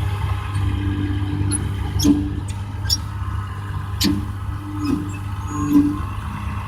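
Bulldozer's diesel engine running steadily while the machine moves, with several sharp clanks and short squeals from the tracks and linkage scattered through it.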